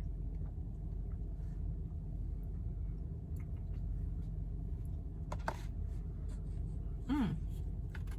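A person swallowing a pill with a hot drink, giving one short falling "mm" a little after seven seconds, over a steady low hum and a small click about five and a half seconds in.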